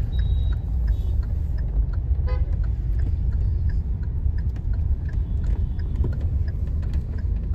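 Steady low rumble of a car driving, heard from inside the cabin, with faint short horn toots from the surrounding street traffic.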